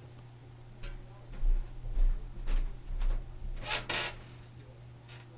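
Water heater knocking and ticking: irregular sharp knocks and clicks, with heavy low thuds a second or two in, over a steady low hum.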